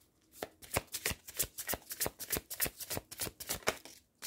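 A deck of angel-number oracle cards shuffled by hand: a quick run of card flicks, about six a second, that stops shortly before the end.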